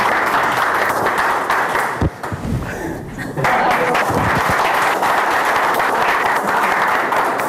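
Studio audience applauding. There is a thud about two seconds in, then a short lull before the clapping picks up again.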